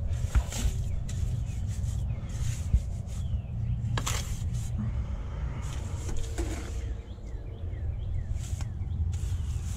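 Pointed trowel scraping and spreading a wet cement mortar bed, in short rough strokes with a few sharp taps, over a steady low rumble. A few bird chirps come near the end.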